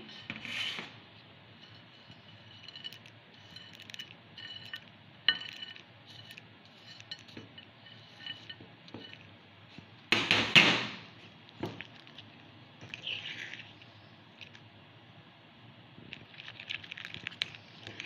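Metal spoon clinking and scraping against a small ceramic ramekin while walnuts and chocolate chips are stirred into thick banana batter, in scattered light taps. About ten seconds in there is one louder short clatter, and the scraping gets busier near the end.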